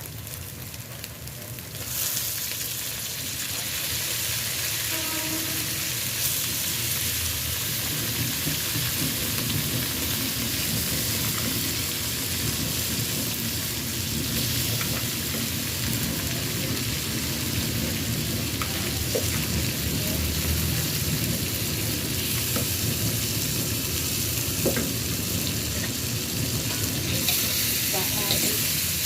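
Pieces of beef frying in hot oil with browned spice paste in a wok over a high flame, sizzling steadily, with a spatula stirring now and then. The sizzle jumps louder about two seconds in and stays there.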